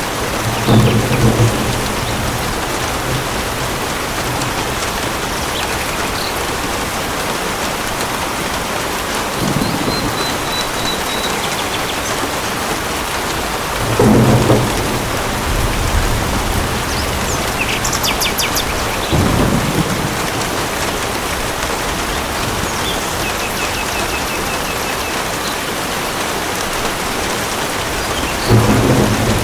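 Steady heavy rain falling on a surface in a thunderstorm, with short low rumbles of thunder about five times. A few faint high bird trills sound through the rain.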